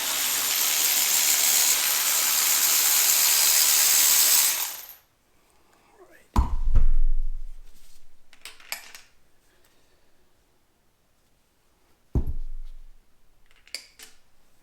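Hand tools at work on an engine while its spark plugs are pulled: a loud steady hiss for about five seconds that cuts off suddenly, then two heavy thuds of metal set down about six seconds apart, with a few light clicks between them.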